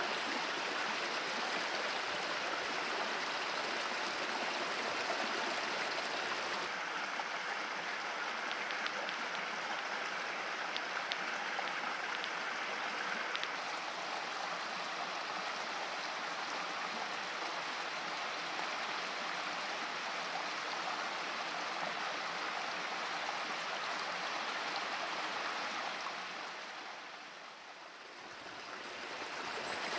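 Steady rushing water of a stream, an even noise with no bird calls heard over it. It fades down briefly near the end and comes back up.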